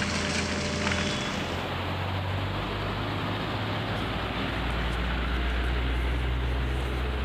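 Outdoor field sound of a heavy engine running with a low, steady drone that grows stronger about halfway through, under a constant rushing noise.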